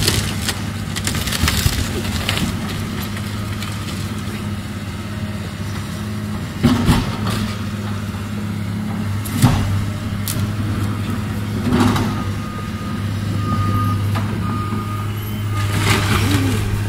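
Diesel engine of a CAT hydraulic excavator running steadily with a low hum, broken by several sudden crashes and cracks as the barn's timbers and debris are smashed and dropped during demolition.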